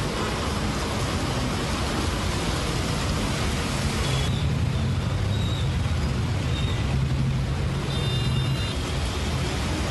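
Heavy rain pouring down with road traffic passing: a steady hiss over a low engine rumble, with a short high-pitched tone about eight seconds in.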